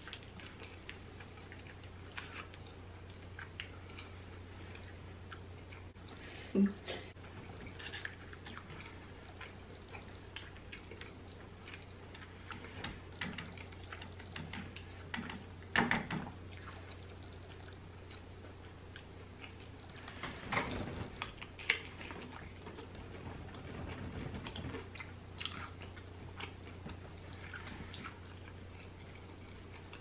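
Close-up eating sounds: chewing and biting into crispy fried chicken wings, with wet crackles and smacks as the breading is pulled apart and chewed. There are a few louder bites, the loudest about halfway through, over a steady low hum.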